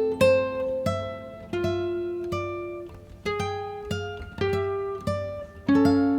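Background music on plucked acoustic guitar: single notes picked one at a time, each ringing out and fading, over a steady bass.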